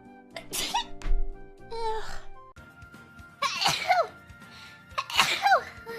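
A string of short sneezes in young women's voices, about five in a row, each a brief burst with a falling pitch, over steady background music.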